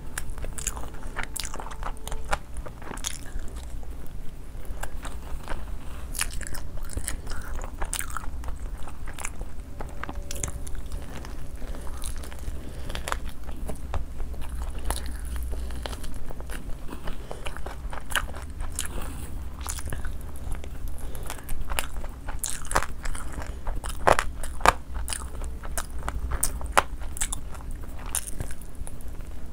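A person biting into and chewing crunchy food, with irregular crisp crackles and clicks throughout; two sharper, louder crunches come about three quarters of the way in.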